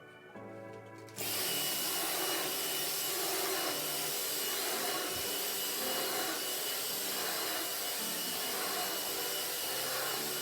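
Cordless stick vacuum cleaner switched on about a second in, then running steadily: an even rush of air with a thin high whine over it. Soft background music plays before it starts.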